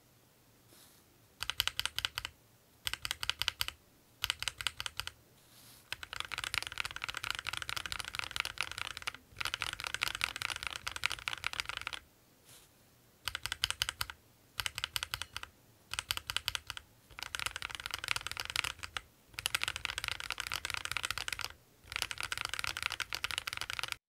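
Mechanical keyboard fitted with Akko Jelly Pink linear switches being typed on: bursts of rapid key clacks with short pauses between them.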